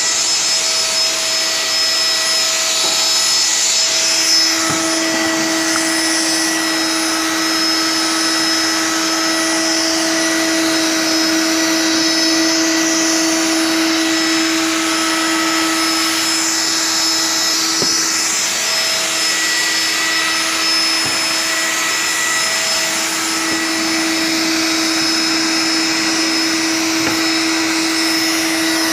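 A woodworking machine's electric motor running steadily for the whole stretch. It gives a constant hum under a loud hiss that swells and fades a little.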